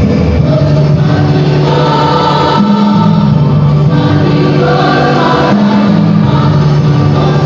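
School choir singing in several parts, holding sustained chords that move to a new chord every second or so.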